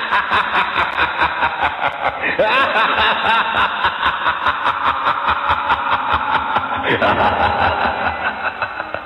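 Laughter: a long run of quick, even laughs, heard as a muffled, tinny recording.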